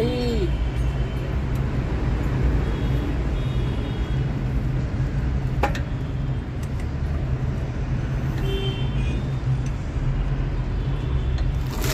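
Steady low rumble of a running vehicle engine, with one sharp click about halfway through.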